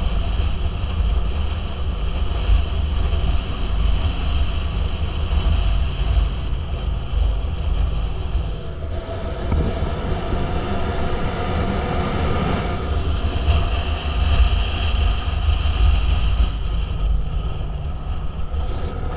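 Motorcycle engine running at road speed, buried under heavy wind rumble on the microphone. The engine note shifts in pitch a few times with the throttle.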